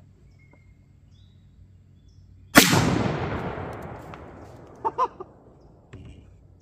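A 12-gauge shotgun firing a single 1-ounce Winchester rifled slug: one sharp report about two and a half seconds in, rolling away in a long fading echo over the next couple of seconds. Two short sounds follow near the end of the echo.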